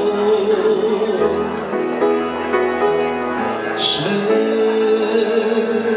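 A singer performing a Polish song over instrumental accompaniment, holding long sustained notes.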